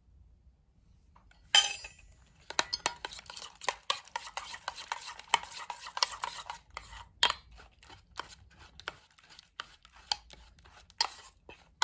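Metal spoon stirring a thick yogurt mixture in a stainless steel bowl, scraping and clinking against the bowl's sides in quick irregular strokes. It begins with a sharp clink about a second and a half in.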